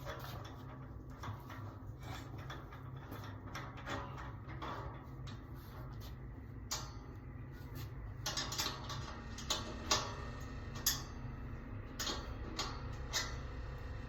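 Scattered light clicks and clinks from the parts of a snack display rack being handled and fitted together, a few sharper ones in the second half, over a steady low hum.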